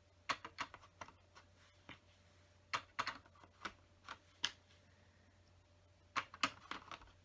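Small plastic LEGO bricks clicking and clattering as pieces are handled and pressed together, in irregular clusters of sharp clicks with a busier run near the end.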